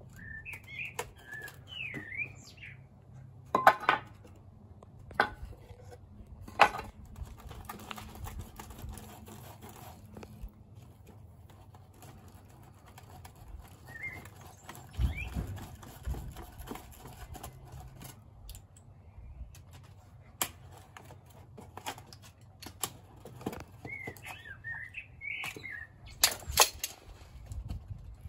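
Sharp wooden and metal knocks and clatter as a hot wooden mould box, packed with sand around a freshly poured aluminium casting, is gripped with metal tongs and its boards worked off by gloved hands. Small birds chirp at the start and again near the end.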